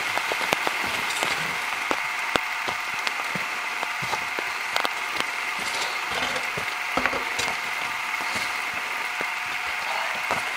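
Steady rain hissing in a forest, with frequent irregular sharp ticks and cracks.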